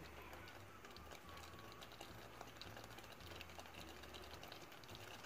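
Near silence: faint, scattered small pops and ticks from a pot of cornstarch-thickened sauce simmering, over a faint low hum.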